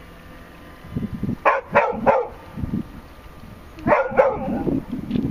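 A dog barking: three quick barks about a second and a half in, then two more around four seconds in.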